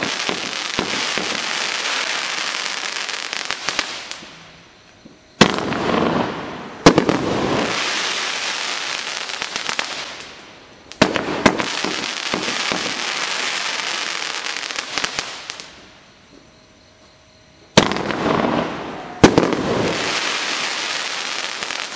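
A 500 g 30-shot consumer fireworks cake firing in four volleys. Each opens with sharp bangs of shells breaking and is followed by several seconds of dense crackling from the white stars, which fades away before the next volley.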